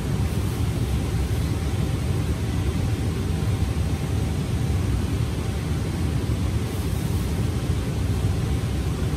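Steady low rumbling noise with a faint hum above it.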